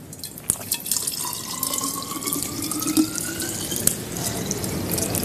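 Water running from a tap into a pot, its pitch rising steadily as the pot fills, with a few light knocks of the vessel.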